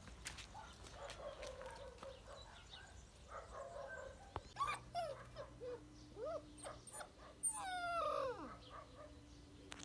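Young puppy giving a few short, high yips and whimpers about halfway through, then one longer whine that falls steeply in pitch near the end.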